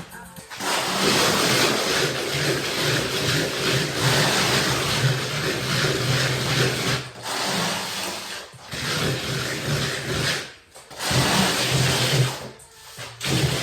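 Electric drill with a paddle mixer stirring decorative bark-beetle plaster. The motor runs steadily in stretches and stops briefly four times.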